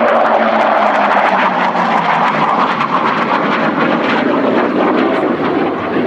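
Hawker Hunter jet fighter flying past with loud, steady jet noise. A low tone in the noise sinks in pitch over the first couple of seconds as it passes.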